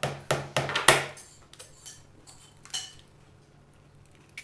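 A utensil knocking and clinking against a mixing bowl: a quick run of about six sharp knocks in the first second or so, then fainter clicks and one sharper clink near three seconds in.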